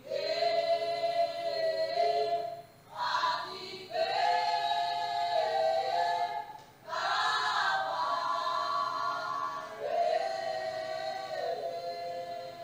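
Several voices singing together unaccompanied, in about four long, held phrases with brief breaks between them.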